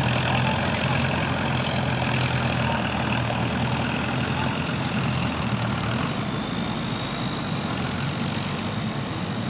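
Jolly Jumper proto trial truck's engine running at low revs as it crawls over a steep dirt mound. The engine note eases about halfway through.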